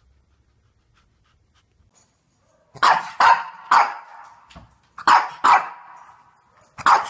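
Shih Tzu barking: six sharp barks in short groups of three, two and one, starting about three seconds in, each trailing off in the room's echo.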